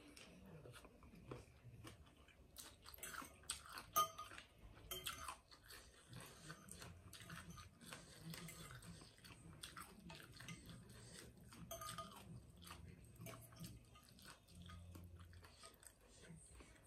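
A person eating soft rice noodles in broth: faint chewing and wet mouth sounds with many small clicks, and a sharper click about four seconds in.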